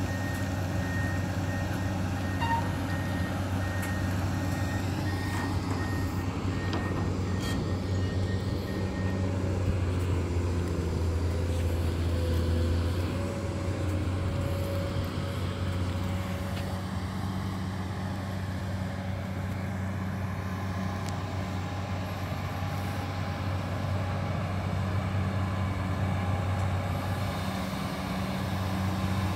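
Diesel engine of a Komatsu PC200 amphibious excavator running with a steady low hum, while a warning alarm beeps repeatedly for roughly the first nine seconds. From about ten seconds in the engine note rises and shifts as the hydraulics work the long-reach boom.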